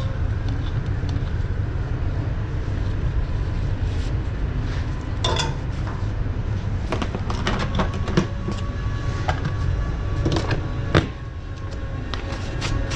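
A steady low machine rumble with a faint whine, broken by scattered clicks and knocks.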